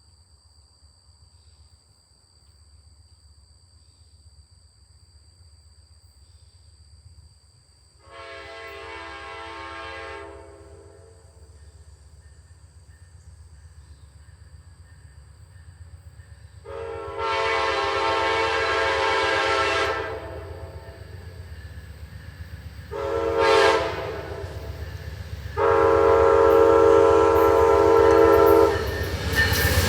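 Amtrak P42DC locomotive's Nathan K5LA five-chime air horn sounding long, long, short, long, the grade-crossing signal, as the train approaches. It grows louder with each blast over a low rumble of the oncoming train, and the train's passing noise starts right at the end.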